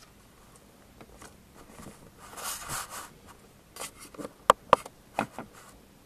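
Paper rustling as a printed paper cutout is slid across and pressed flat onto a notebook page, with a longer rustle about two seconds in and a few short taps near the end.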